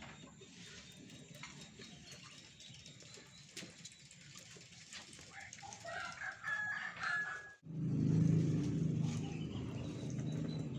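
A rooster crowing once, a held call about six seconds in, over faint background ambience. The sound cuts off abruptly about halfway through the call's end, giving way to louder low-pitched background noise.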